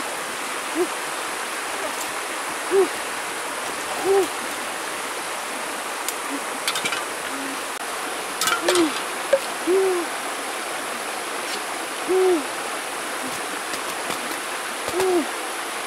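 Short hooting bird calls, each a single rising-and-falling note, repeated every second or two over the steady rush of a shallow rocky river. A few light clicks of bamboo being handled come about halfway through.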